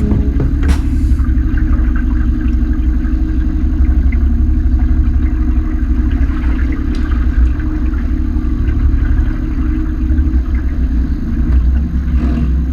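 Boat's outboard motor running steadily under way, over a loud low rumble, with a brief click about a second in.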